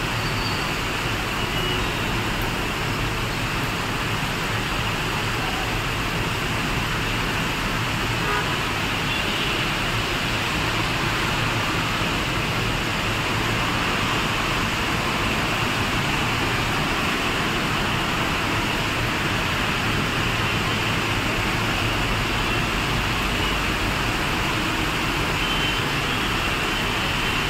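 Heavy rain falling in a steady, even hiss.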